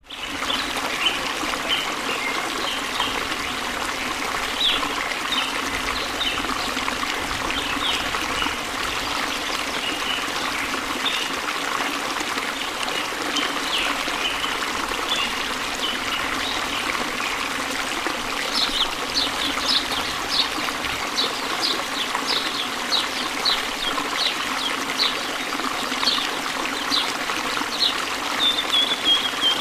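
Flowing river water trickling and running steadily. A small bird calls in short, high chirps over it, now and then at first and then about twice a second over the second half.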